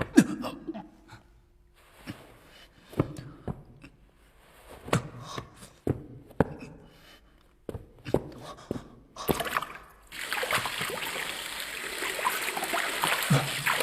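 A few light knocks and clicks, then about ten seconds in water starts running and keeps going steadily, like a tap left on.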